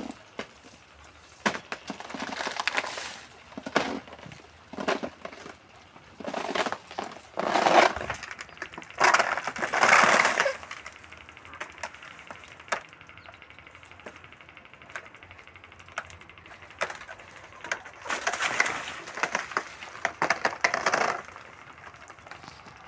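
Rustling and snapping of leaves and twigs with crunching footsteps, coming in irregular bursts with a quieter stretch in the middle.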